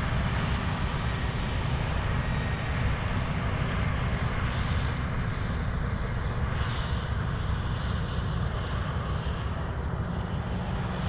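Claas Lexion 780TT combine harvester running steadily under load while harvesting barley, a dense, even engine-and-machinery drone with a strong low rumble.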